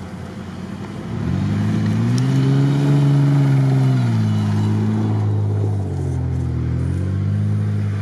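Off-road SUV engine pulling up a sandy slope under load. The revs rise about a second in and are highest as it passes close, drop about four seconds in, and climb again near the end.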